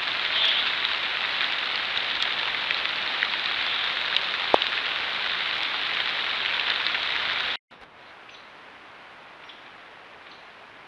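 Steady hiss like light rain, with a few faint ticks. It cuts off suddenly about seven and a half seconds in, leaving a much quieter hiss with faint ticks.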